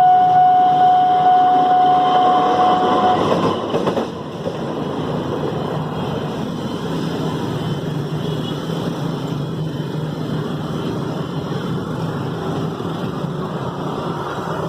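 Level-crossing warning siren holding one steady tone, which cuts off about three seconds in, over the rumble of a passing train. The train's running noise carries on steadily after the siren stops.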